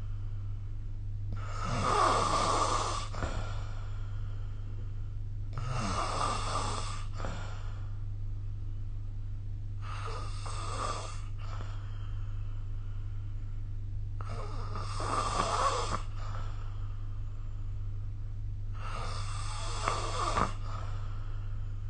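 A sleeping person snoring: five snores, one about every four to four and a half seconds, over a steady low hum.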